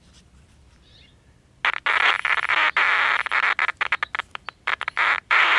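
Vintage AM pocket transistor radio's speaker hissing and crackling with static, which starts about a second and a half in and keeps cutting in and out. The noisy crackle is the sign of a fault still present after the transformer lead repair.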